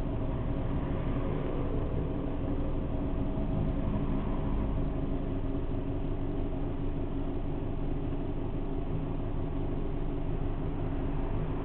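Vehicle engine idling steadily, an even hum that holds the same pitch throughout, with the low rumble of traffic waiting behind it.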